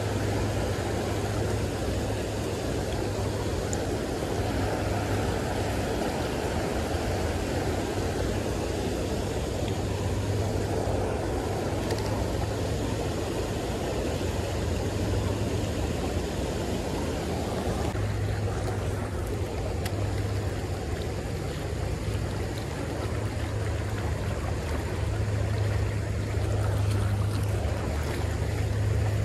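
Creek water rushing steadily over a low weir and riffles, with a low rumble that swells and fades several times.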